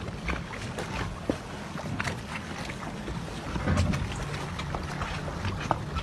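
Water splashing and slapping against the side of a small inflatable boat as a beluga whale surfaces alongside, with wind buffeting the microphone. Short sharp splashes and knocks come through the steady wind noise, and a stronger gust hits about four seconds in.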